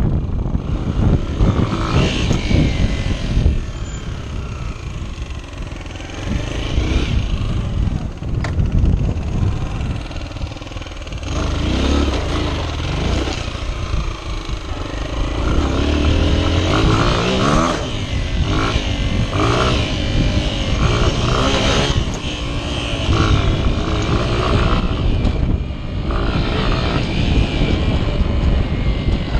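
Honda XR 125's single-cylinder four-stroke engine being ridden off-road, revving up and down over and over as the throttle and gears change.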